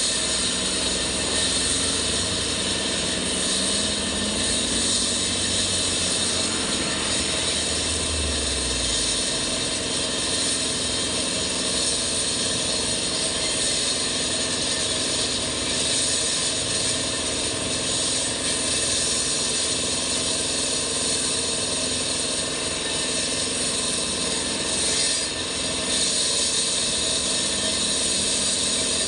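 Diesel-powered concrete and asphalt cutter running with a steady, dense mechanical noise. A low engine tone rises over the first few seconds, then the sound holds steady.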